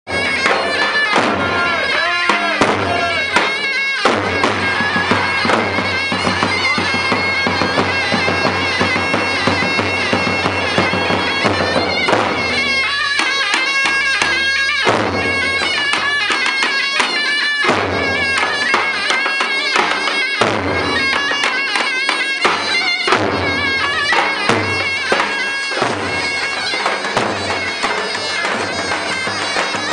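Turkish folk dance music on davul and zurna: a large double-headed bass drum beaten in a steady dance rhythm under a loud, reedy, piercing shawm melody, without a break.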